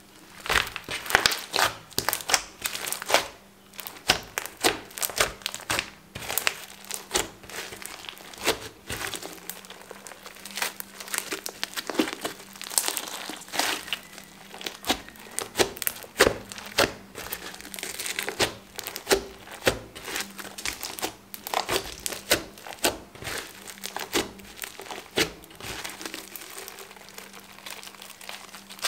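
Thick white slime mixed with small coloured beads being squeezed, pulled apart and stretched by hand: dense, irregular sticky crackling and clicking.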